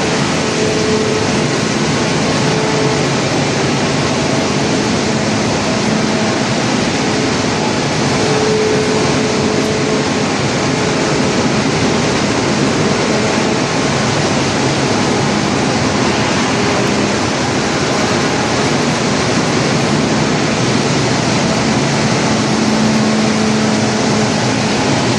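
Sawdust making machine (wood crusher) running with a steady noise and a faint hum.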